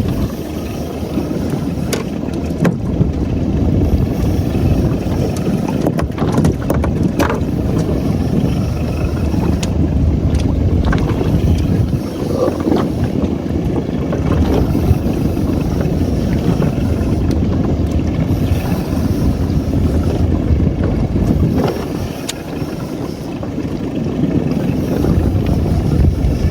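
Steady wind and boat noise at sea, mostly a low rumble of wind on the microphone, with a few sharp clicks or knocks in the first several seconds.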